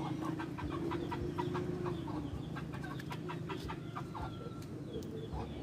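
Chickens clucking in short separate calls over a low steady hum.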